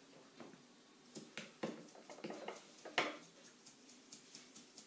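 Salt and pepper being shaken out over a glass bowl: a run of faint, irregular ticks and rattles starting about a second in, with one sharper click about three seconds in.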